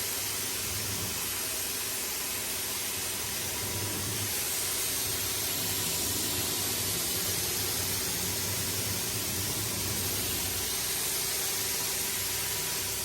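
Old 1450 psi (100 bar) home pressure washer spraying a water jet onto a carpet rug: a steady hiss of spray over a low hum.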